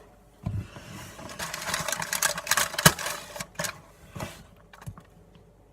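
A chocolate wrapper is crinkled and rustled, with many sharp clicks and crackles. The crinkling is thickest in the middle, with one loud snap about three seconds in.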